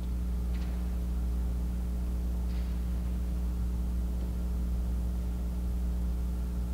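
Steady low electrical hum with a faint hiss: mains hum in the audio feed.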